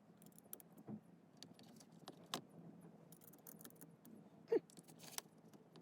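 Faint small metal clicks and clinks as screwdriver bits from a precision set are handled and fitted against a small screw, with one louder clink about four and a half seconds in.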